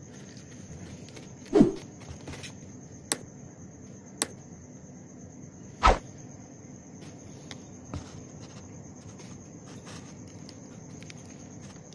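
A few short knocks and taps against a cardboard box, the two loudest about a second and a half in and near the middle, with sharper clicks between them, over a faint steady high whine.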